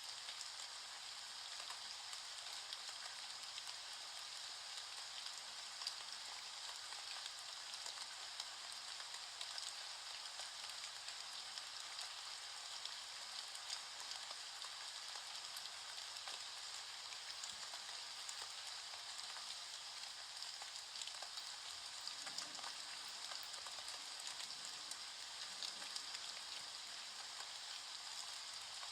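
Steady rain falling: a faint, even hiss with many small ticks of drops.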